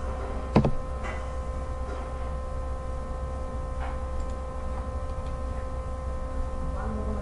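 Computer mouse clicks over a steady low electrical hum: one sharp click about half a second in, then a few fainter ones.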